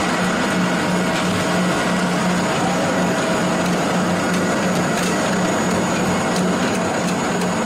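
Pellet mill (pelletizer) running: a loud, steady mechanical whirr with a constant low drone.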